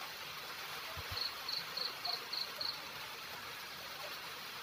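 Steady faint room hiss with a soft knock about a second in, followed by a quick run of six short, high, evenly spaced chirps from a small animal lasting about a second and a half.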